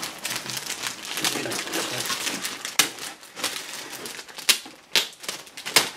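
Thin plastic kit bag crinkling and rustling as it is worked open to get at a sprue, with a few sharp crackles in the second half.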